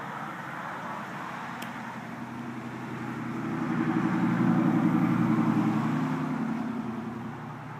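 A motor vehicle's engine passing by, growing louder to a peak about halfway through and fading near the end, over a steady background hum.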